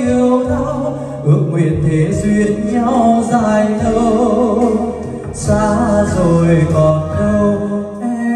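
A man singing a ballad into a microphone over karaoke backing music, played through a dBacoustic LX8 karaoke system.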